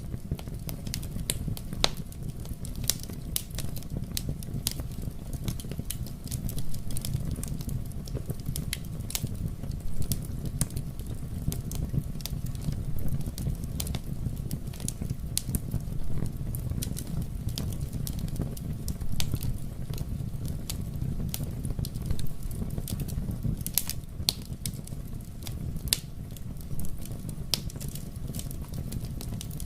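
Wood campfire crackling, with frequent sharp, irregular pops over a steady low rumble.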